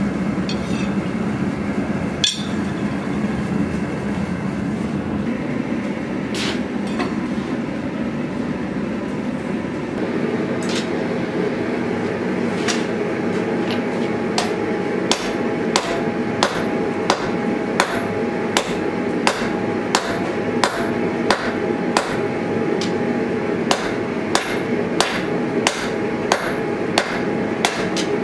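Hand hammer striking a red-hot steel blade blank on an anvil: a few separate blows at first, then from about halfway a steady run of about three blows every two seconds, with the anvil ringing. Under it runs the steady rushing noise of the lit forge.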